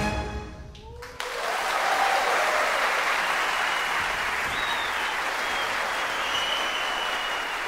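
Music fades out within the first second, then a large theatre audience breaks into steady applause, with a few whistles over the clapping.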